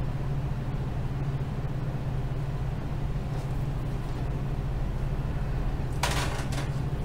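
Steady low hum, with a short hiss of noise about six seconds in.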